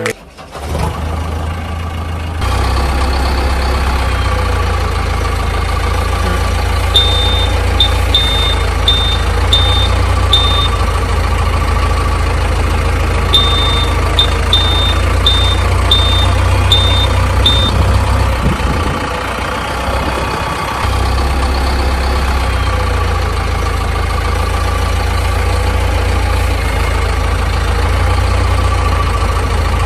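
A heavy vehicle's engine running steadily at idle, with two runs of about six high reversing beeps, a quarter of the way in and again near the middle. The engine sound sags for a couple of seconds about two-thirds of the way through, then comes back.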